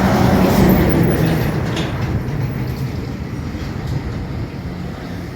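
A motor vehicle passing on the road, its engine hum loud at first and fading as it moves away.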